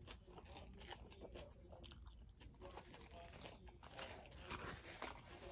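Close-up mouth sounds of a person chewing food, with small wet clicks and crackly crunching that grow a little louder about four seconds in.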